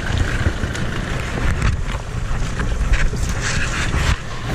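Wind rumbling on the microphone, with a few knocks and clatters of gear being handled in an inflatable boat.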